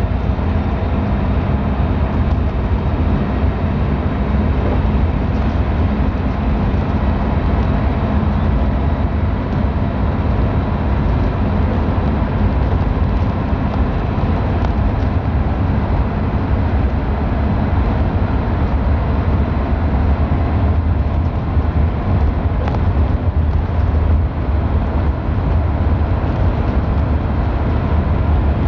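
Steady engine and road rumble heard inside a moving vehicle's cabin, driving on a wet road, with a few faint steady hums over a deep, even drone.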